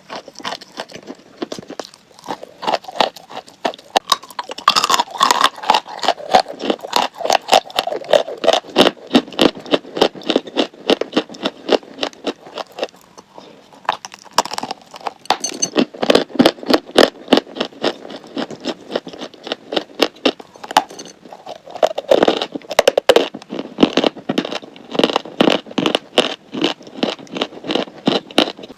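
Crunchy chalk being bitten and chewed close to the microphone: a dense, rapid run of sharp crunches and crackles, with short pauses about twelve and twenty seconds in.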